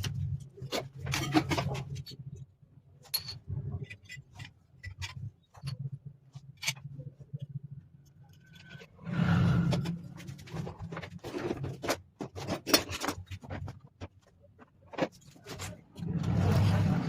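Irregular clicks, knocks and scrapes of hand tools and metal parts being handled during work on an electric water heater, with two longer rushing noises, one about nine seconds in and one near the end.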